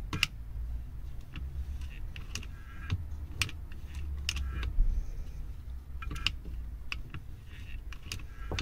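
Honda G35 recoil starter being turned by hand, its metal pulley and ratchet pawl giving a series of irregular light clicks and short rattles over a low rumble.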